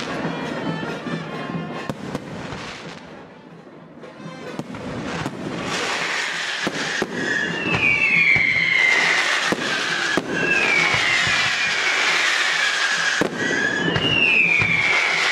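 Fireworks display: aerial shells bursting with sharp bangs and crackle. The noise dips a few seconds in, then builds again into a dense, hissing barrage. In the second half a falling whistle recurs about every three seconds.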